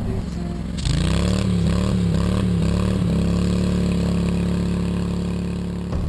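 Fire engine's engine running at high revs. It comes in under a second in, its pitch wavers up and down for about two seconds, then holds steady.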